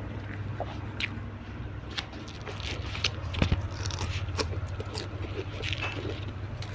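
A person chewing and crunching a meal of tilapia and raw vegetables close to the microphone: irregular crisp crunches and wet mouth clicks over a steady low hum.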